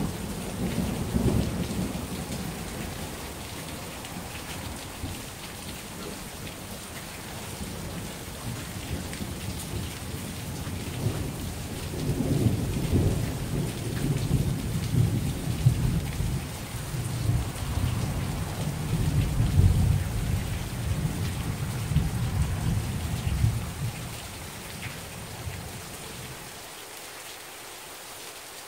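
Thunder rumbling over steady heavy rain: a short low rumble at the start, then a long rolling peal through the middle that swells several times and dies away near the end.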